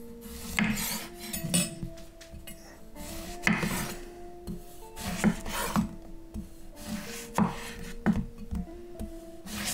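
Chef's knife slicing a zucchini into rounds on a wooden cutting board: several cuts a second or two apart, each a short rasp through the vegetable ending in a knock of the blade on the board.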